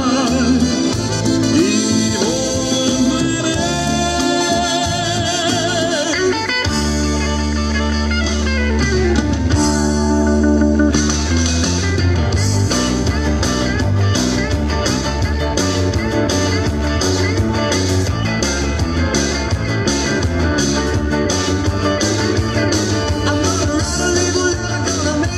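Recorded dance music with a singer played for a dance routine. The music changes abruptly about six seconds in, and a steady drum beat of about two strokes a second takes over from about eleven seconds.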